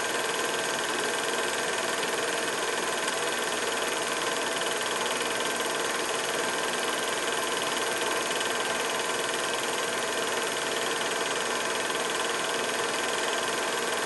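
Steady, unchanging hiss with a hum of several fixed tones, like a machine running or noise from the film transfer.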